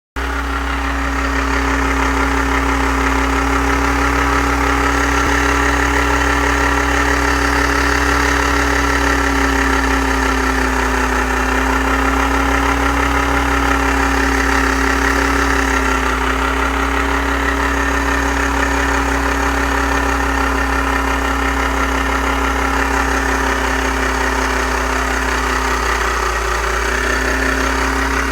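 Volkswagen AP 1.8 four-cylinder engine idling steadily, with an unusual noise that the owner cannot identify.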